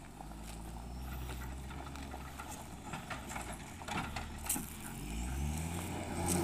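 Caterpillar 426F2 backhoe loader's diesel engine running, then revving up with a rising pitch over the last second or two as the front bucket pushes into a gravel pile. A few sharp clacks of stone come along the way.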